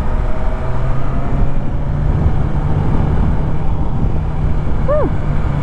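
BMW S1000RR's inline-four engine running steadily at road speed, with wind rushing over the microphone. A short tone rises and falls once near the end.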